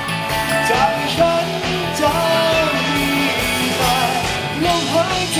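Male vocalist singing live into a microphone over pop-rock band accompaniment with a steady beat.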